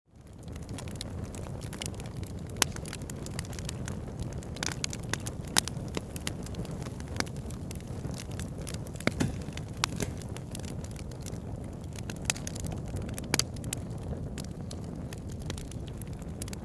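Wood campfire burning: a steady low rush of flames with sharp crackles and pops of burning wood scattered throughout, the fire fading in from silence at the very start.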